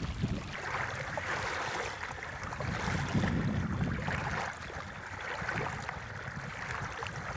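Small waves washing onto the shore of a reservoir: a steady hiss of water that swells and eases every couple of seconds, over a low rumble.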